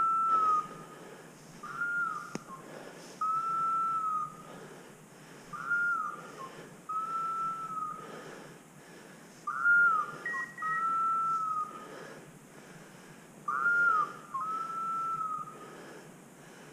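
A hunting dog's beeper collar sounding at regular intervals, about once every four seconds. Each call is a short falling note followed by a longer steady tone at the same pitch.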